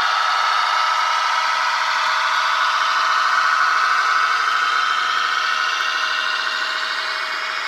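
Märklin H0 model of a BRB LINT diesel railcar running along the track, its onboard sound decoder playing diesel engine running noise through a small speaker, mixed with the model's motor and wheels on the rails. The sound eases off slightly near the end as the train moves away.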